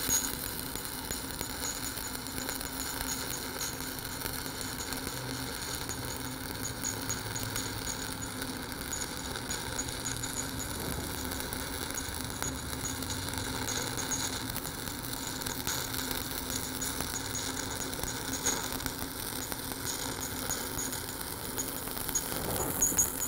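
Shielded metal arc (stick) welding with a 7018 electrode on a fill pass: the arc burns with a steady crackling hiss, over a low steady hum.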